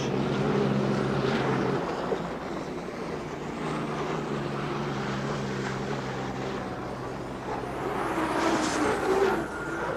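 Jet-turbine-powered racing hydroplanes running at speed on the water: an aircraft-like engine drone, steady for the first two seconds, then a rushing noise that swells near the end.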